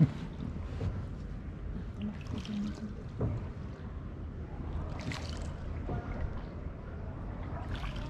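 A gondola gliding along a narrow canal: the gondolier's oar dipping and swishing through the water every two to three seconds, over a steady low rumble.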